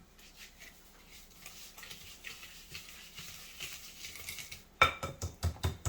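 A plastic whisk stirring a thick butter-and-sugar paste in a bowl, soft scraping at first, then near the end fast, loud whisking with the whisk knocking the bowl about six or seven times a second.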